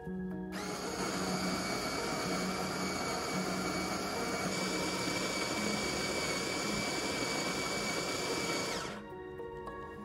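Smeg electric burr coffee grinder grinding coffee beans: a steady motor whine over a grinding hiss, starting about half a second in and cutting off suddenly about nine seconds in.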